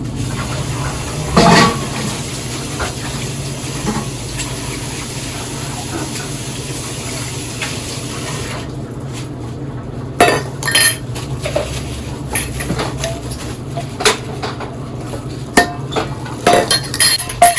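Kitchen tap running as a dish is rinsed under it, with a knock about a second and a half in; after about eight and a half seconds the water stops and dishes clink and clatter as the dish is handled and set down.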